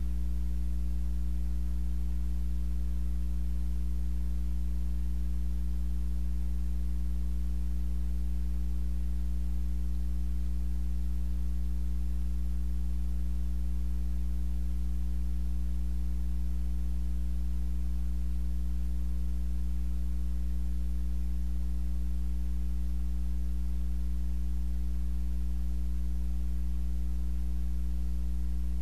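Steady electrical hum: a strong low tone with several higher overtones, unchanging in pitch and level.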